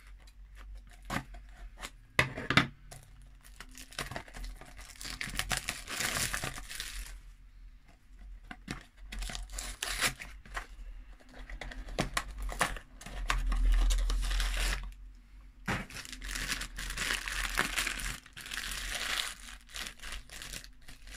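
A cardboard Funko blind box being torn open and the small bag inside crinkled as it is opened: several spells of tearing and crinkling, with scattered clicks and knocks of handling between them.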